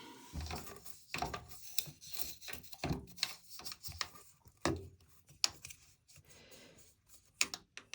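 Irregular scraping and rubbing with small sharp knocks as hands work at a front-loading washing machine's drain pump filter and its housing.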